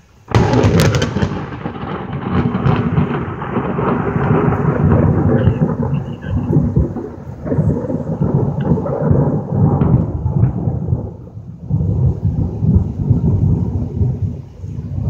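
A close thunderclap: a sudden sharp crack just after the start, then a long rolling rumble that swells again several times.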